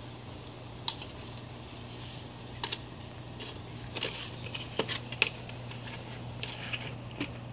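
Light clicks and taps of plastic aquarium filter parts being handled and fitted together, irregular and clustered about halfway through, over a steady low hum.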